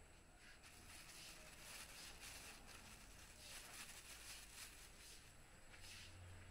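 Near silence: a faint, uneven outdoor hiss.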